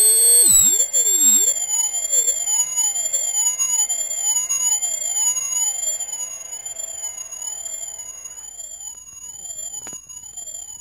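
Piezo tweeter of a homemade ultrasonic dog-bark deterrent, driven by a sound generator, giving a steady electronic tone that warbles up and down in pitch a little more than once a second. It slowly fades, and a faint click comes near the end.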